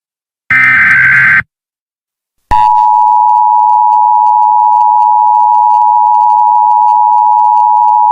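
Emergency Alert System signal: the last of the SAME header data bursts, a harsh, warbling digital screech about a second long, then after a second's silence the EAS attention signal starts, a loud, steady two-tone alarm that holds. It announces that a new emergency alert message follows.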